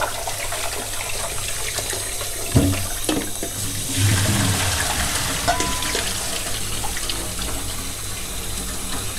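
A kitchen tap runs into a stainless steel sink while shrimp are swished by hand in a steel bowl to rinse off tapioca starch. A couple of knocks come about two and a half to three seconds in. About four seconds in, the bowl's water is poured out with a heavy splash into a plastic colander.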